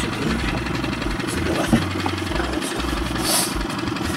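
Outboard motor idling steadily on an inflatable boat, with a few light knocks.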